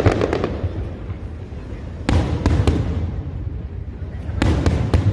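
Aerial fireworks shells bursting overhead: three loud booms about two seconds apart, each followed by a short spell of crackling, over a continuous low rumble.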